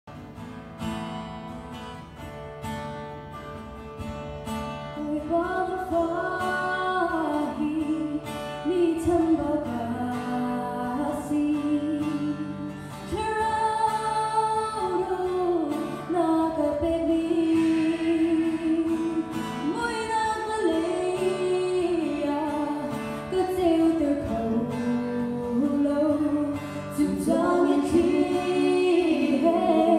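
Acoustic guitar playing a short introduction, then a young woman's voice comes in about five seconds in, singing a slow hymn-like melody into a microphone over the guitar.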